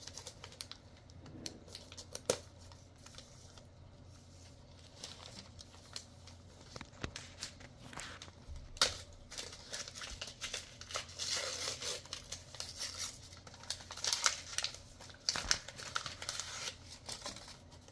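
Paper and ribbon being pulled off a small wrapped gift box and the box being opened by hand: paper crinkling and tearing with small clicks and taps. Sparse at first, busiest in the second half.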